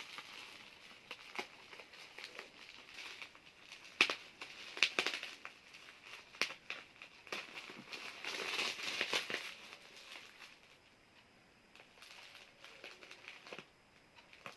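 Plastic bubble-wrap packing being handled and cut open: crinkling and tearing with scattered sharp clicks, busiest about eight to nine and a half seconds in.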